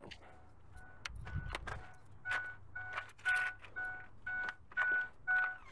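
Vehicle door-open warning chime from a pickup truck, dinging evenly about twice a second as the driver's door stands open. A couple of clicks and a low thump come about a second in, just before the chime starts.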